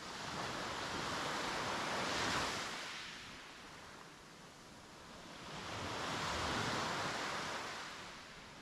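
Mediterranean waves breaking and washing up a beach. Two swells of surf each rise and fade over three or four seconds: the first peaks about two seconds in, the second a little past the middle.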